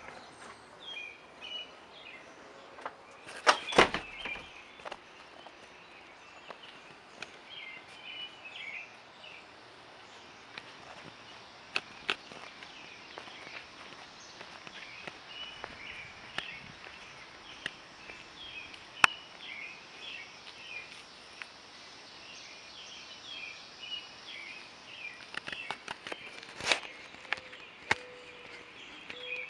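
Small birds chirping, with many short calls, alongside occasional footsteps and sharp knocks, the loudest knocks about four seconds in.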